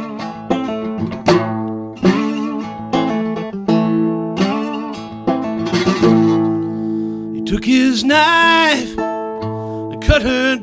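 Solo acoustic guitar, capoed, picked and strummed in an instrumental passage: single notes and chords ring out one after another. A held, wavering note rises above the guitar about three-quarters of the way through.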